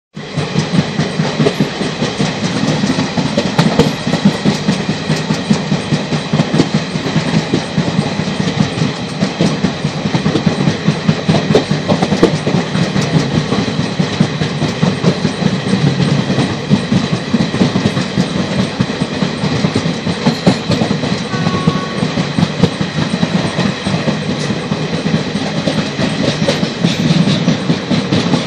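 A train running along the track, heard from on board: a steady rumble of wheels on rails with a dense, uneven clatter of clicks.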